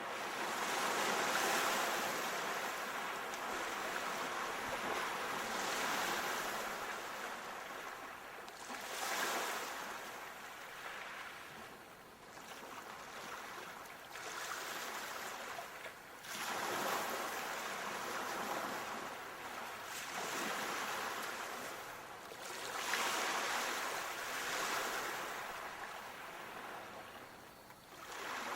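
Sea waves washing in and drawing back: a steady surf hiss that swells and falls every few seconds.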